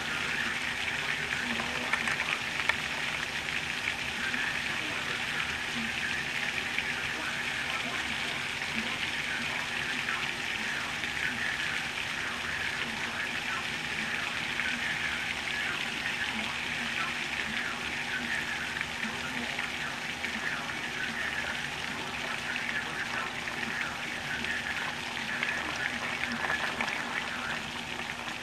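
Torrential hurricane rain pouring down, a dense, steady hiss of drops on pavement, lawn and standing floodwater.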